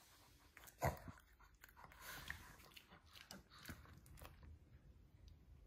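A Shih Tzu chewing a blueberry taken from a fork, with faint wet crunching and smacking. There is a sharper click about a second in.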